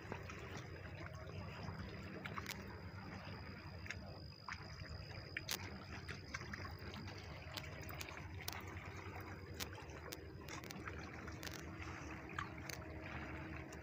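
Faint, steady wash of river water lapping against a rocky shore, with scattered light clicks and a thin high steady tone for several seconds in the first half.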